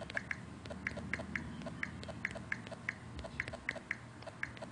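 Key-press clicks from an Android phone's on-screen keyboard as a search term is typed letter by letter: a quick, even run of short pitched clicks, about three or four a second.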